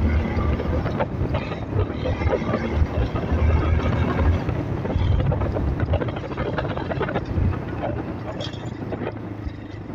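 Victory MRX 150 dual-sport motorcycle's single-cylinder engine, bored out to 190 cc, running as the bike rides along. It eases off and grows quieter over the last few seconds.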